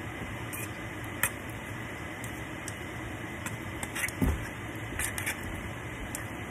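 Hand working batter in a stainless steel mixing bowl, with a few light clinks and a soft thump about four seconds in, over a steady background hiss.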